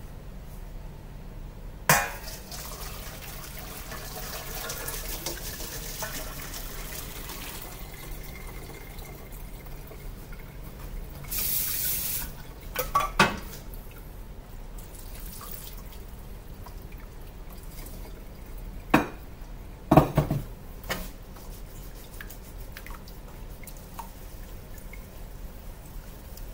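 A pot of boiled macaroni being drained into a kitchen sink: water pouring and dripping, with a short, loud rush of water about halfway through. The metal pot clanks against the sink a few times, loudest about three-quarters of the way through.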